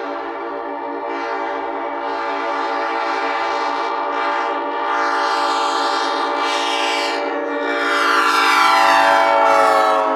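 Nathan AirChime P5 five-chime locomotive air horn sounding one long continuous blast: a steady multi-note chord that swells louder over the last couple of seconds.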